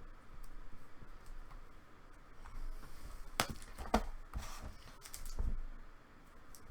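Trading cards being handled: a few light clicks and rustles, bunched from about halfway in.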